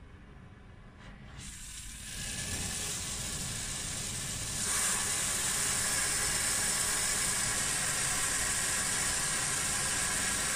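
Oxy-acetylene welding torch flame hissing. The hiss starts about a second and a half in and gets louder in two steps, at about two and about five seconds, as the oxygen valve is opened and the smoky acetylene flame is brought to a neutral flame. After that it holds steady.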